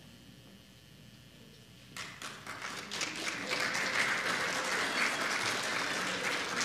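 Audience applauding, starting suddenly about two seconds in after a quiet hall and carrying on steadily.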